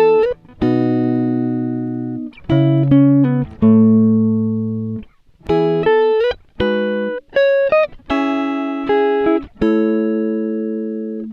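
Background music: a guitar playing single notes and small chords, each plucked sharply and ringing out as it fades, a few sliding up in pitch as they start.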